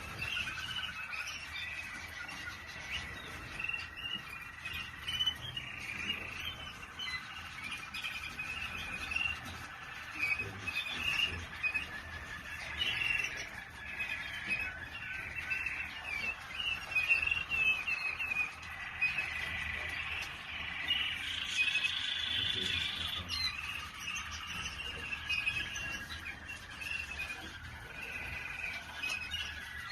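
Waterslager canaries singing continuously, long rolling trills mixed with held whistled notes.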